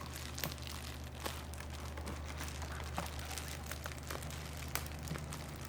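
Plastic snack packaging crinkling in scattered light crackles and clicks as it is handled, over a steady low hum.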